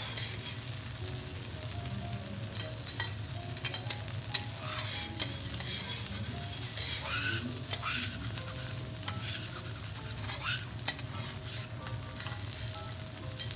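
A5 wagyu steak sizzling steadily on a steel teppanyaki griddle, with scattered sharp clicks and scrapes from the chef's metal spatulas against the plate.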